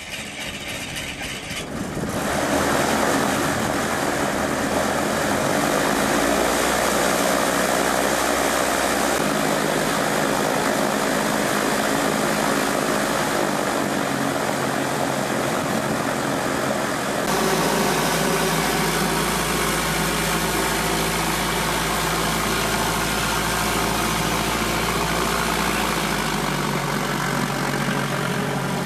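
Socata Rallye 110 ST light aircraft's four-cylinder Lycoming engine and propeller running at low power while the plane sits and taxis. It gets louder about two seconds in, and its tone shifts abruptly twice.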